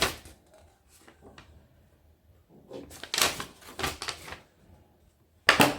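Handling noise as items are taken out of a toy RC truck's box: faint clicks, then a cluster of rustling and knocking about three seconds in, and a louder clatter near the end.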